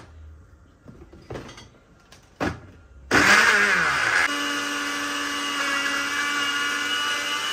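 Countertop blender: a few light knocks as the jar and lid are handled and the knob is turned, then about three seconds in the motor starts suddenly and runs loud, blending chunks of tomato and onion into a puree. About a second after starting it settles into a steady whir.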